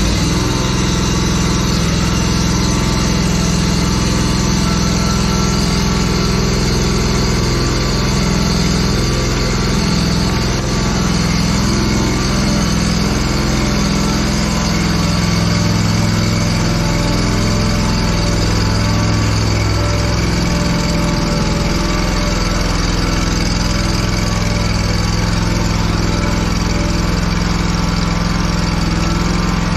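Hustler Trimstar walk-behind mower's engine running steadily just after starting. Its low note shifts for several seconds around the middle.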